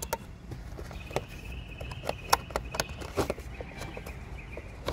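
Irregular clicks and knocks of a wiring connector and plastic trim being handled and fitted by hand, with a faint steady high whine through the middle.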